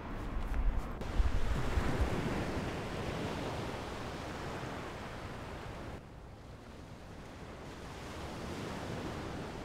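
Sea waves breaking and washing up a sandy beach, with wind buffeting the microphone. A low rumble swells in the first second, the surf is loudest a second or two in, then settles to a softer, steady wash.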